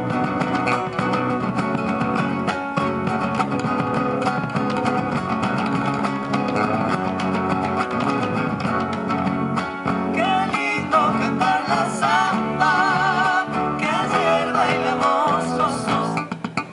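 Live Argentine folk band: two acoustic guitars strummed over electric bass and a bombo legüero drum. Voices come in singing about ten seconds in, with a wavering held note soon after.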